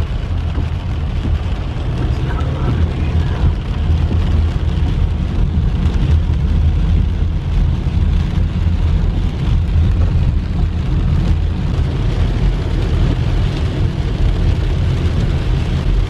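Steady low road and engine rumble inside a car's cabin while driving on a wet road, with rain hitting the windshield.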